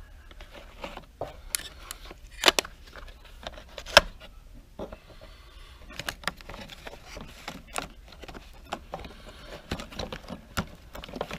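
Small tools and plastic cases being handled and shifted in a drawer of machinist's tools: scattered clicks and knocks, with two sharper clacks about two and a half and four seconds in.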